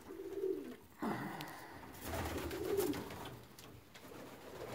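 Domestic pigeons cooing in a small loft: a few low, drawn-out coos one after another, fading toward the end.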